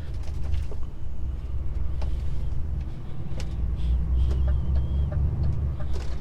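DAF XF truck's diesel engine droning low inside the cab with road rumble as it drives through a small roundabout, pulling a little harder after about three seconds. A few small clicks and rattles come through.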